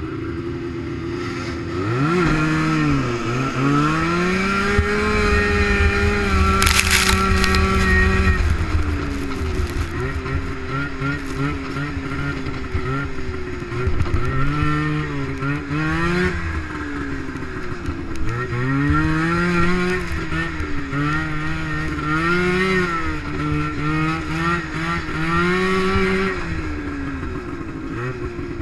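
Race snowmobile engine at full throttle: it revs up and pulls away from the start line about two seconds in, holds high revs, then drops and climbs in pitch again and again as the throttle is eased and reapplied. A brief sharp knock about seven seconds in.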